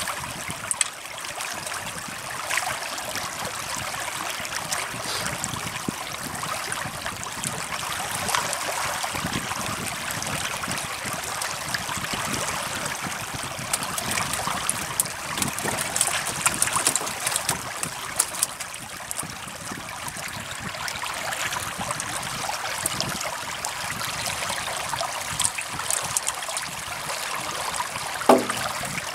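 Several fish hooked on one line thrashing at the river's surface: continuous splashing and sloshing of water, with many small slaps. A brief squeak near the end.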